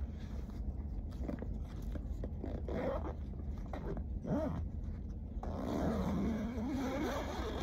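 Rustling, scraping and ripping of the awning's fabric cover and straps as it is wrapped and fastened up against a roof rack, over a steady rumble of wind on the microphone. A faint wavering tone comes and goes, most clearly about six seconds in.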